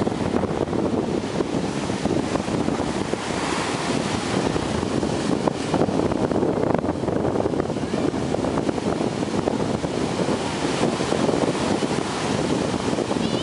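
Ocean surf breaking on a beach, with wind buffeting the microphone in a steady, rough rush.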